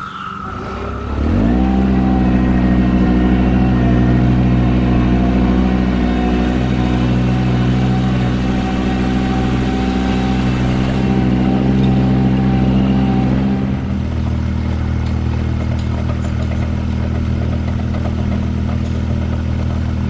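Ventrac 4500Z compact tractor's diesel engine speeds up about a second in and runs steadily. About fourteen seconds in it drops to a lower, steady speed.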